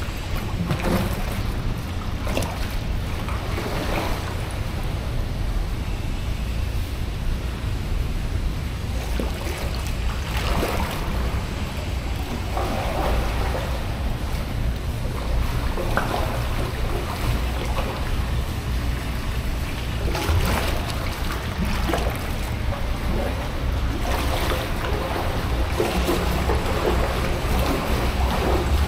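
Packraft paddle strokes dipping and splashing in the river water every second or two, over a steady low rumble.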